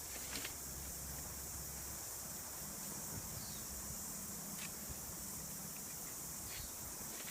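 A steady high-pitched insect chorus of crickets or cicadas, with a few faint sharp clicks about half a second in, near the middle and near the end.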